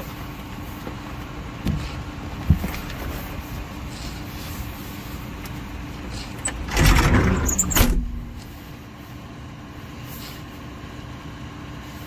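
An engine running steadily with a low hum. A loud rushing noise lasts about a second and a half past the middle, then the sound settles to a quieter hum.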